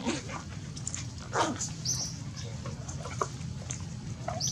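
Animal whimpers and squeaks: scattered short cries, the loudest a squeal falling in pitch about a second and a half in, with brief high chirps, over a steady low rumble.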